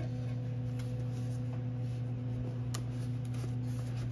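A steady low hum throughout, with faint clicks and light handling of a cardboard box as its lid flap is worked open, one click a little under three seconds in.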